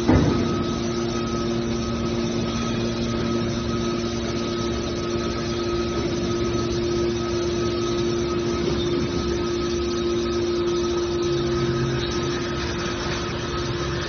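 Hydraulic baling press for aluminium cans running: a steady machine hum from its pump and motor, with a short clank right at the start.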